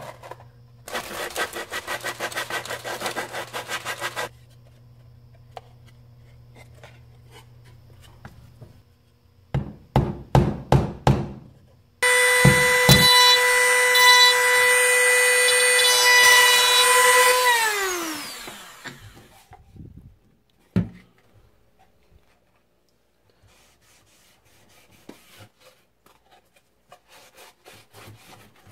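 A corded handheld rotary tool runs at high speed on a wooden disc, a loud steady high whine for about five seconds, then spins down with falling pitch as it is switched off. Before it there are a few seconds of quick scratchy rubbing and a few loud knocks; near the end, faint rubbing.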